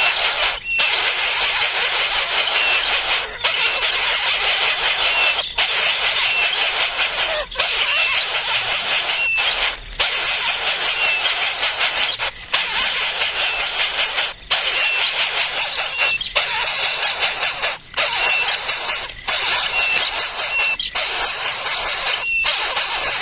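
Baby birds calling without a break, a dense high chatter with brief dips every second or two and a short high chirp repeating about once a second.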